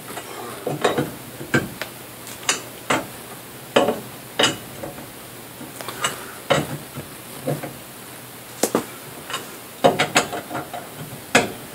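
Irregular metallic clanks and clinks of car-jack and lug-wrench tools being worked and knocked against metal at a car's wheel during a tire change.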